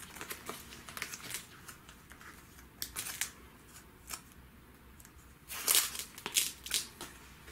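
A stack of bagged comic books being flipped through by hand: the plastic bags rustle and slap against one another in a run of short bursts, with a louder flurry about three quarters of the way in.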